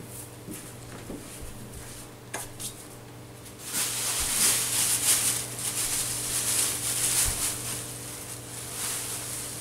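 Metallic foil tinsel crinkling and rustling as it is gathered off the floor and stuffed into a bag, starting a few seconds in, over a low steady hum.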